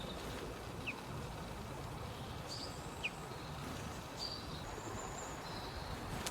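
Birds calling faintly over a steady outdoor background hiss: two short, sharp, falling chirps about one and three seconds in, and thin high calls in between.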